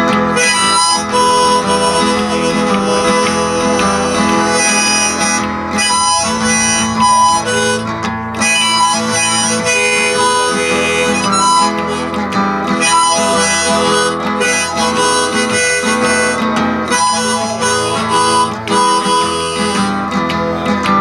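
Blues harmonica playing a solo over acoustic guitar accompaniment, an instrumental break in a blues song.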